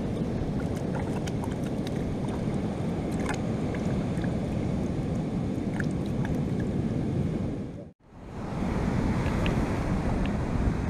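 Steady surf and wind rushing on the microphone, with faint splashes of hands being washed in a bucket of water during the first several seconds. The sound drops out sharply about eight seconds in, then the surf and wind return.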